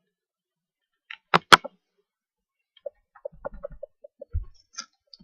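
Trading cards being handled: two sharp snaps about a second and a half in, then a quick run of light clicks.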